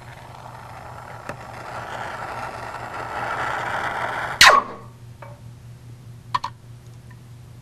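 A torch flame hissing as work-hardened copper is heated to anneal it, growing louder over about four seconds. A sudden loud burst comes a little over four seconds in. A couple of light metallic clinks follow near the end.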